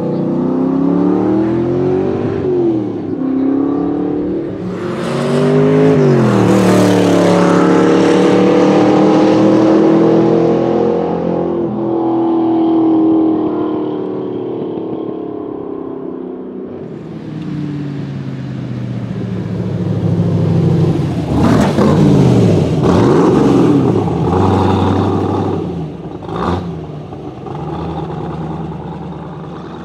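DeTomaso Pantera's Ford 351 V8 accelerating hard through the gears, its pitch climbing and dropping at each upshift, then fading away with distance. It comes back loud again about eighteen seconds in with quick swoops in engine pitch as it passes or revs.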